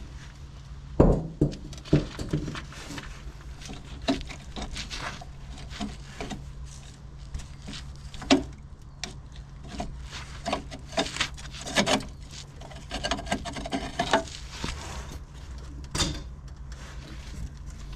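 Scattered knocks and clatter of work on the bus, the sharpest about a second in and again near 2, 8, 12 and 16 seconds, over a steady low hum.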